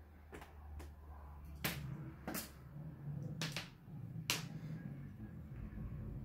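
Small electric motor of a self-rolling cat toy ball humming as it moves over a hardwood floor, with about seven sharp clicks and knocks in the first four and a half seconds.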